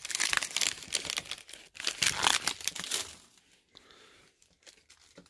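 Foil card-pack wrapper crinkling and rustling as a slabbed trading card is slid out of it. The crinkling stops about three seconds in, leaving only a few faint ticks.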